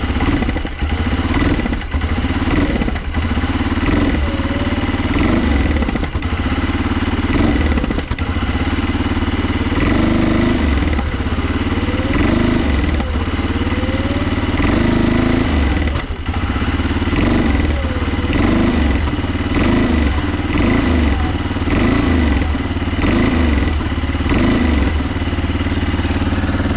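Arctic Cat 400 ATV's single-cylinder engine running at idle with a rattle, its sound swelling and easing about once a second rather than holding even. It runs rough and dies when revved, which the owner puts down to either bad fuel in the carburetor or an air leak where the carburetor has come off the intake boot.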